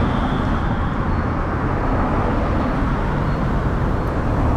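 Steady road-traffic noise: a constant low rumble of cars on the street.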